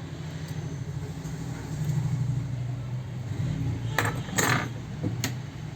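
A steady low hum with a few sharp clicks and clinks of small tools being handled on a repair bench, about four seconds in and again about a second later.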